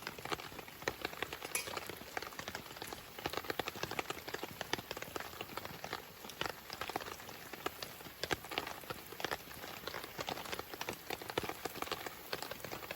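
Food cooking over a campfire: dense, irregular crackling and popping, like meat sizzling and fat spitting in a pan over the fire.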